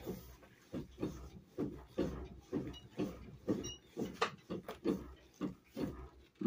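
A person's short, rhythmic grunting sounds, about two and a half a second.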